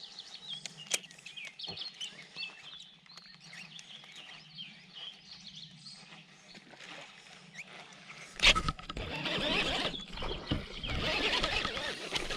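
Faint bird chirps over quiet pond surroundings, then a sudden loud splash about two-thirds of the way in as a small bass hits a topwater frog lure, followed by continued splashing and thrashing at the surface.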